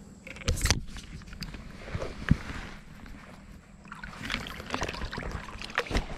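Water sloshing and splashing, with a few sharp knocks: one about half a second in, one a little after two seconds and one near the end.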